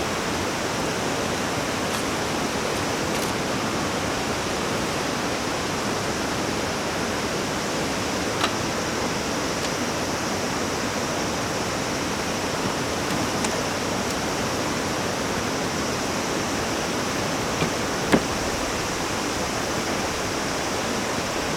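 Mountain stream rushing, a steady, even sound of flowing water, with a couple of faint clicks.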